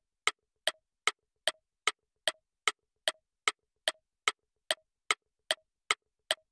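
Ticking countdown-timer sound effect: a steady run of sharp ticks, about two and a half a second.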